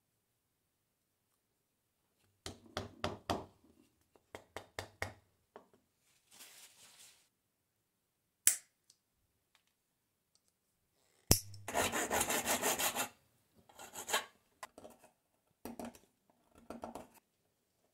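A hand file scraping across a wooden drill-handle knob in short bursts of rapid strokes, starting a couple of seconds in, with two sharp clicks in the middle.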